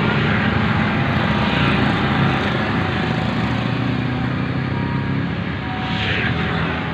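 An engine running steadily, a low drone over a dense rushing noise, with a brief falling whine about six seconds in.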